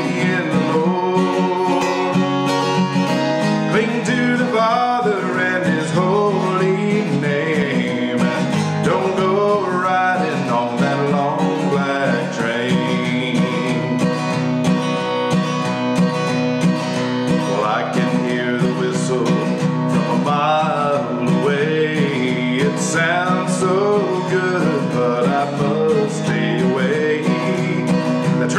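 A man singing a slow country song while strumming an acoustic guitar, his voice rising and falling over the steady chords.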